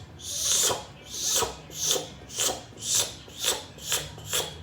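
A man imitating with his mouth a kitchen knife cutting cabbage: a regular run of short, crisp rasping strokes, about two a second.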